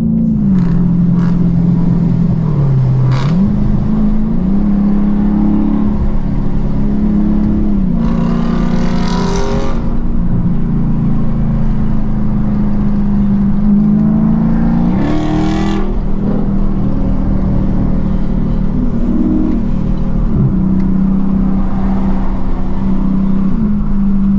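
Car engine running while driving, its note dropping and climbing back several times as it shifts and revs. Two brief rushing swells come through, about eight and fifteen seconds in.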